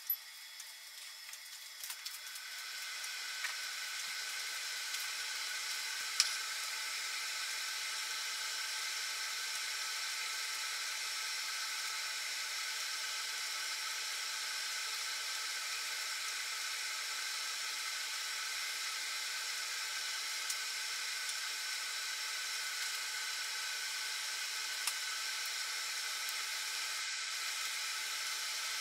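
Steamer pot of water boiling hard over a homemade aluminium-can alcohol stove, giving a steady hiss of steam with several thin high tones running through it. The hiss builds over the first couple of seconds and then holds even, with a few faint ticks.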